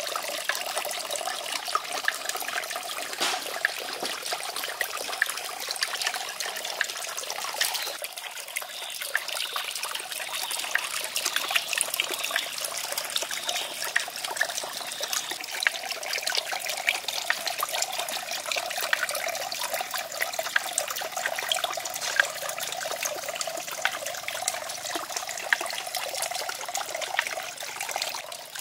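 Water trickling steadily from a small garden waterfall into a pond, with many faint clicks over it.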